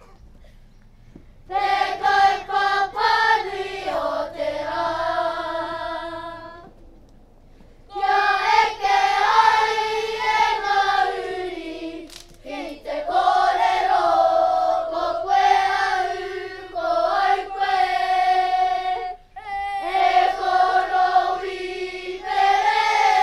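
A group of children singing a Māori waiata (action song) together. The sung phrases begin about a second and a half in, with short pauses between lines.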